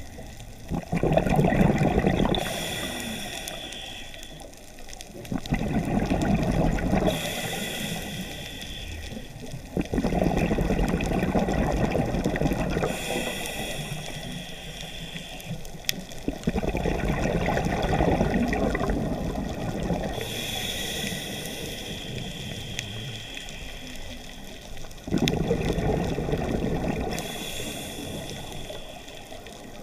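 Scuba diver breathing through a regulator underwater: about five slow breaths, each a hiss of air drawn through the regulator and a rush of exhaled bubbles.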